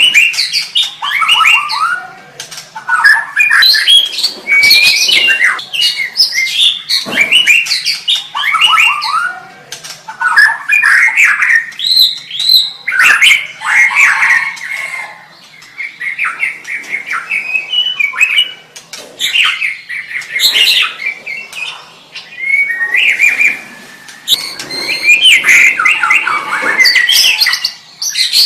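White-rumped shama (murai batu) singing loudly: varied phrases of rapid gliding notes, each a second or few long, with short pauses between them.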